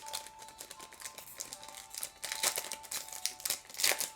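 Foil booster-pack wrapper crinkling and trading cards being handled, a run of short crinkles and taps, loudest about two and a half and four seconds in. Faint background music runs underneath.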